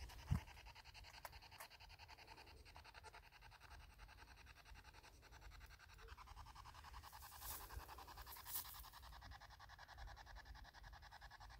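Near silence: a faint steady hiss, with one soft thump just after the start and a couple of faint brief rustles later on.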